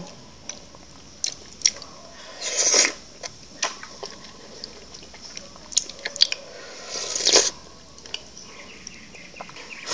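A person slurping sticky ambuyat (sago starch) dipped in fish soup from a bowl held to the mouth: two long slurps, about 3 and 7 seconds in, with scattered short wet mouth smacks and clicks between them.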